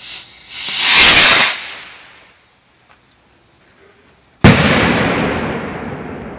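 Consumer aerial firework going off: a hiss that swells and fades as it launches, then about three seconds later a single loud bang as it bursts overhead, echoing away slowly.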